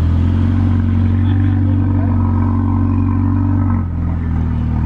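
A car engine running steadily at slightly raised revs, then settling back to a lower idle about four seconds in.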